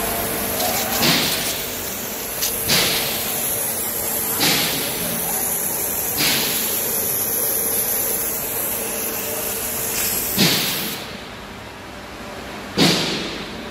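YF waterjet cutter's high-pressure jet hissing as it cuts glass under water, with a louder surge every two seconds or so. About eleven seconds in, the sharp high hiss drops away and a quieter, lower noise remains, still with the periodic surges.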